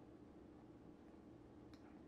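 Near silence: room tone with a steady faint low hum and one faint click near the end.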